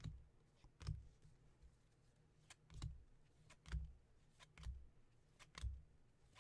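Faint handling of Topps baseball trading cards as they are flipped through one at a time: six soft taps with light clicks, about one a second, each as a card is moved or set down.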